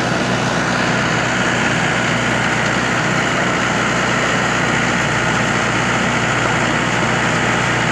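Mahindra 475 tractor's diesel engine running steadily, driving the hydraulics of a rear-mounted backhoe as it digs and lifts a bucket of soil.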